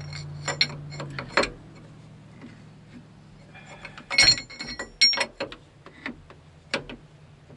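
A hand wrench clicks and clinks on a steel JIC hydraulic hose fitting as the fitting is tightened down over a Flaretite seal at the hydrostatic pump. There are two short bursts of rapid metallic clicks, the first starting right away and the second about four seconds in, then a couple of single clicks near the end.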